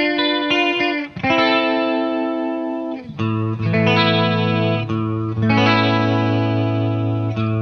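Les Paul electric guitar played through a Boss ME-50 chorus effect into miked Marshall amps. Quick picked notes open, then ringing chords are struck about a second in and again around three, four and five and a half seconds in, with a low bass note added from about three seconds in.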